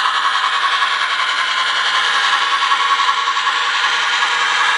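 MTH model of a C&O H-8 2-6-6-6 steam locomotive running with a string of freight cars: a steady, even running noise with no pauses.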